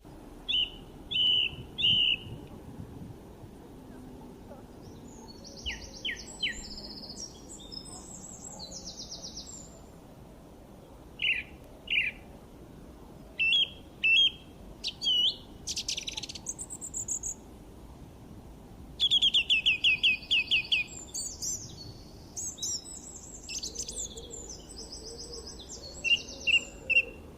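Songbirds chirping and singing in short, varied phrases of quick high notes, with a fast run of repeated notes about two-thirds of the way through, over a steady low background noise.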